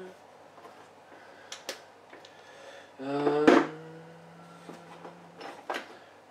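Scattered clicks and knocks of small objects being handled while a bottle of e-liquid is fetched. About three seconds in comes the loudest knock, with a low steady drone that lasts about two seconds.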